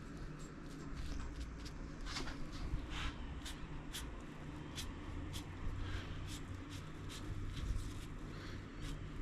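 Paintbrush dabbing and scrubbing paint onto a metal bicycle fender, with irregular light ticks about two or three a second over a steady low hum.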